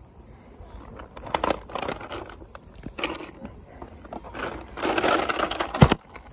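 A plastic bait pouch crinkling and rustling as it is handled and pushed into a plastic tackle box. Near the end comes one sharp knock, the loudest sound, as the box's plastic lid is brought down.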